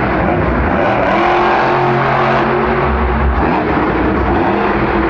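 Monster truck engine running loud, its pitch holding steady for a second or so before falling away.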